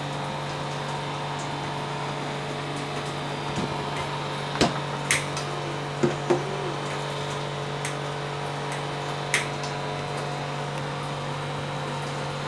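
Knife chopping garlic on a plate: a handful of sharp clicks and taps, spaced irregularly over several seconds, over a steady low hum.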